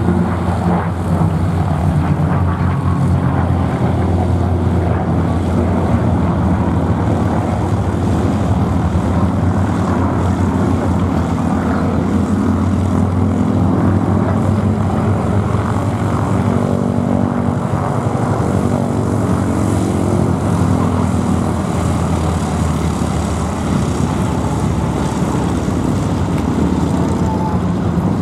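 Two P-51 Mustangs' V-12 piston engines droning steadily as the pair fly overhead in close formation, the combined engine note shifting up and down in pitch partway through.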